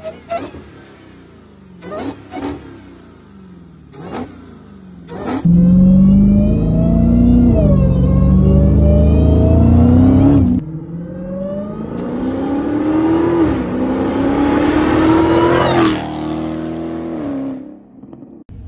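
Supercharged 6.2-litre Hemi V8 of a Dodge Hellcat being revved: several short, sharp stabs of the throttle, then loud, hard revving. After an abrupt break it pulls with a steadily climbing pitch, then backs off near the end.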